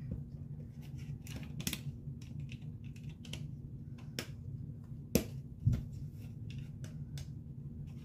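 Plastic construction-set pieces clicking and tapping as they are handled and snapped together, with two sharper snaps a little past the middle.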